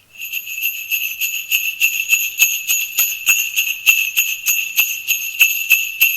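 A hand bell rung steadily, about three strokes a second. Its single high tone rings on between the strokes.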